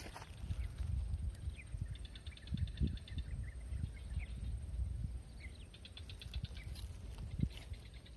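Outdoor ambience: a low rumble of wind on the microphone, with two bursts of rapid high trilling and a few short chirps from small wild animals.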